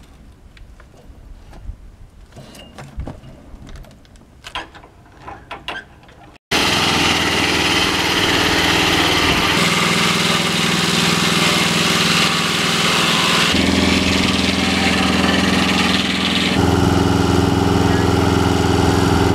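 Faint background with scattered clicks and knocks, then, after an abrupt cut, an engine-powered sawmill running loud and steady, its engine note changing twice.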